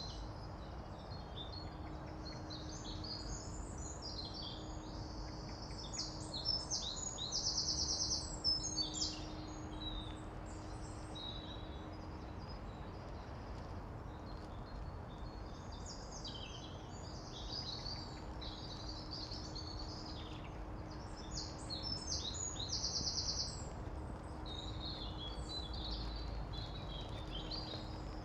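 Birds singing over a steady low background rumble, in two bouts of quick chirping phrases, each with a short fast trill in the middle. A faint steady low hum runs underneath.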